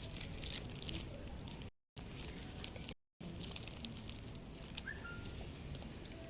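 Faint room noise with scattered small clicks and rustles, and a brief faint chirp near the end. Twice it cuts out to dead silence for a moment.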